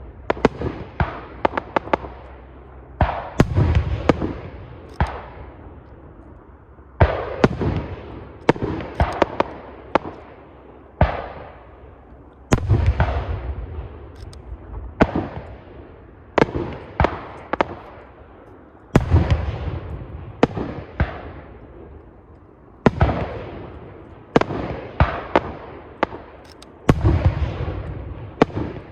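Aerial firework shells bursting in quick succession: loud sharp bangs, often several close together, each trailing off in a rumble.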